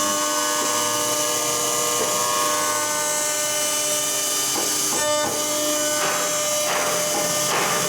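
1325 ATC CNC router running: a steady machine whine of several tones from its spindle and drive motors, with a few brief rougher bursts of noise in the second half.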